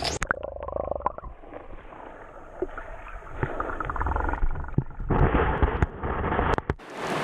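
Muffled gurgling and bubbling of river water, heard with the microphone underwater, with scattered knocks. Near the end it breaks the surface into the steady rush of the stream.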